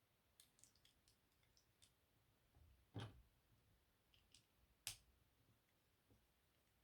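Faint small plastic clicks of LEGO pieces being handled and pressed together, with two sharper clicks about three and five seconds in.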